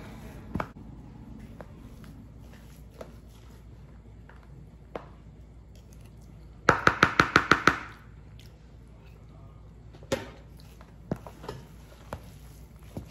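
A mixing spoon knocking against a bowl in a quick run of about eight sharp taps, about seven seconds in. Scattered single soft clicks of the spoon come before and after.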